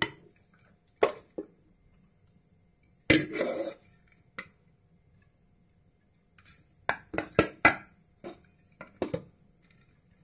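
A spoon tapping and scraping against the rim and sides of an aluminium pressure cooker as cooked basmati rice is put in as a layer over the chicken. Scattered single taps, a short scrape about three seconds in, then a quick run of sharp taps near the end, the kind made when rice is knocked off the spoon.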